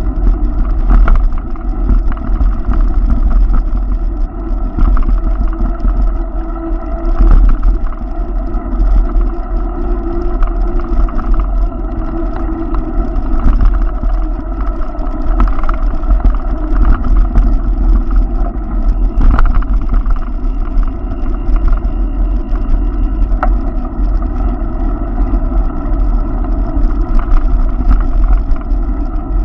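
Steady loud rumble and drone of riding along a city bike lane, mostly wind and road noise on a moving camera's microphone, with a few small knocks from bumps.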